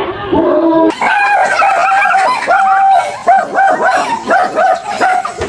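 Dog barking over and over in quick barks, about three a second, after a short drawn-out call in the first second.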